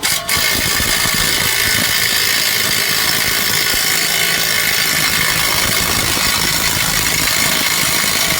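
Impact wrench hammering continuously on a front axle nut that is stuck tight, for about eight seconds, then stopping suddenly.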